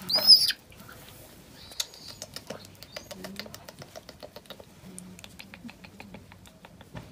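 A baby vervet monkey gives one short, shrill squeal that rises and falls, right at the start. After it comes a run of quick, faint ticks and soft rubbing while the wet infant is rubbed dry in a towel.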